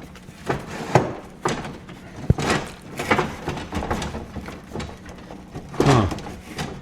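Lengths of wood being pulled and shifted out of a cluttered pile, knocking and scraping against each other and other stored things in several separate clatters, with a sharp knock about two seconds in.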